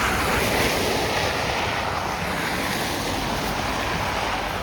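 Car tyres hissing on a wet road as traffic passes, a steady rushing noise that eases slightly near the end.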